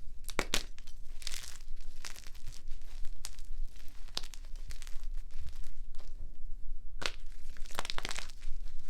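Blocks of gym chalk crunching and crumbling as they are crushed, in irregular crackling bursts with several louder crunches.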